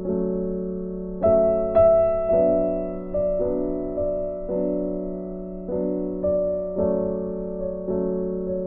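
Background piano music: soft notes and chords struck one or two times a second, each ringing and fading before the next.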